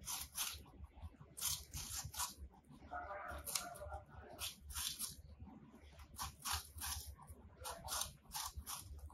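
Two rabbits biting and chewing a fresh apple: a run of crisp, rapid crunches of firm apple flesh that come in bursts with short pauses between them.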